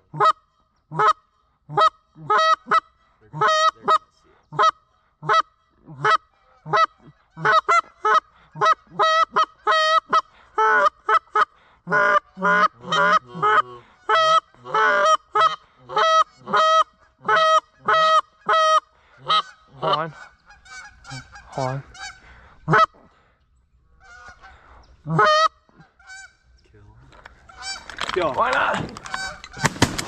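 Geese honking: a steady run of short two-note honks, about two a second, crowding together and overlapping midway and then thinning out. A louder rush of noise comes near the end.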